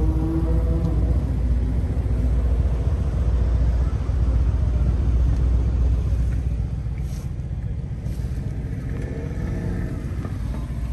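Car engine idling, a deep steady rumble heard from inside the car; it eases slightly after about six seconds.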